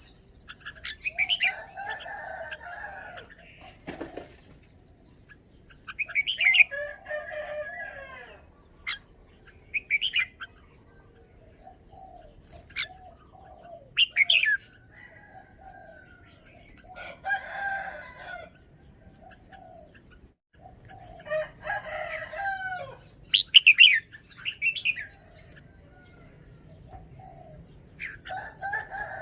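Red-whiskered bulbul singing: short whistled song phrases and sharp chirps repeated every few seconds, with quiet gaps between them.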